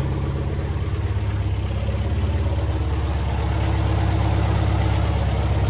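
Supercharged engine of an MG TA race car idling steadily with an even pulse as it warms up, its supercharger and belt drive turning freely.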